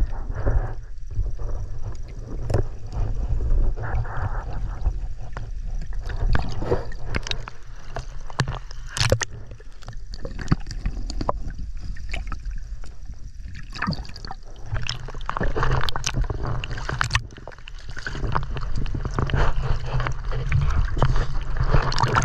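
Muffled underwater noise on a diver's camera: a steady low rumble of moving water with scattered clicks and knocks, then water sloshing as the camera breaks the surface near the end.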